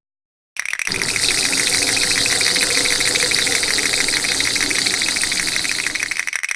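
Animal sound: a loud, fast, dense buzzing trill that starts about half a second in and thins out near the end.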